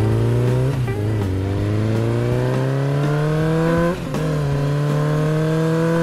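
A motor vehicle engine accelerating. Its pitch climbs steadily, then drops back sharply twice, about a second in and about four seconds in, as at gear changes.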